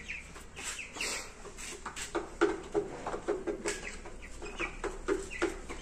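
Brahma chickens clucking: a string of short, separate calls from several birds.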